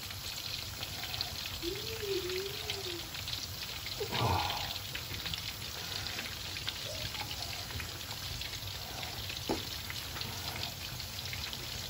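Flour-coated chicken pieces deep-frying in hot oil in a wok: a steady crackling sizzle of many fine pops.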